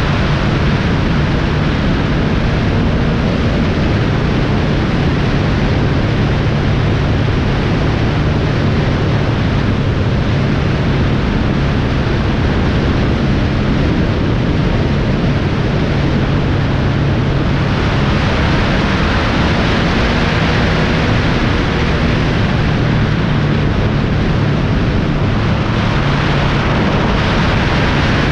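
Vehicle travelling at highway speed: a steady low engine drone under a constant loud rush of wind and road noise.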